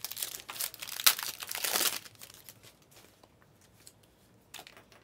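Trading-card pack wrapper crinkling and tearing as it is ripped open, for about two seconds, then fainter handling with a few light ticks.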